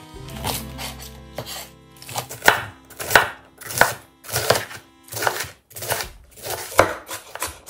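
Santoku knife chopping bok choy stems on a wooden cutting board, the blade cutting through and knocking the board in a steady rhythm of about one and a half strokes a second.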